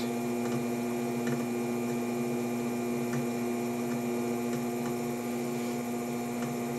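Electric potter's wheel spinning at a steady speed, giving a constant hum, with a few faint soft ticks now and then.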